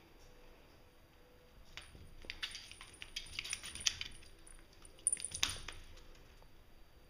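A cat's claws and paws scrabbling and clicking on a wooden floor as it chases a laser dot, in a quick flurry of small clicks about two seconds in and a louder scramble about five seconds in.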